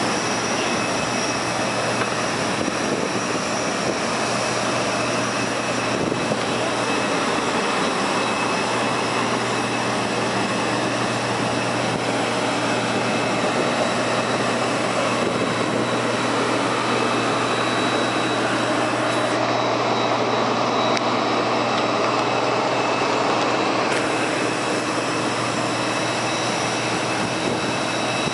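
Jet aircraft noise on an airport apron: a steady roar with a constant high turbine whine, unchanging throughout.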